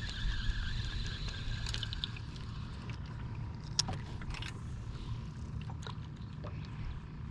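Fishing-boat ambience on choppy water: a steady low hum, a wavering whine during the first two seconds, and a few faint scattered clicks.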